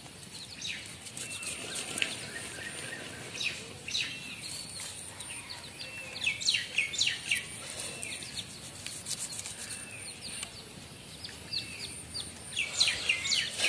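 Small birds chirping in quick runs of short falling notes, over light scraping and clicking from a knife scaling a raw fish.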